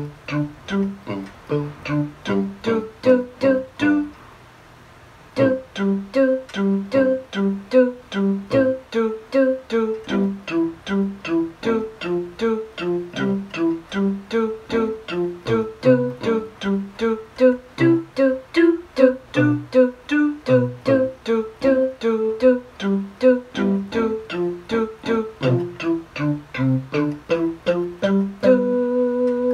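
Casio CTK-240 keyboard playing a plucked-string, guitar-like tone in quick flowing broken chords, about three notes a second, with a short break about four seconds in. Near the end it changes to a steady held tone.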